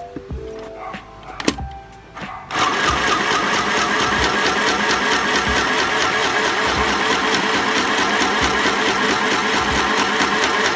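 Mini electric sewing machine running at a steady, rapid stitch through fabric. It starts about two and a half seconds in, after a few light clicks.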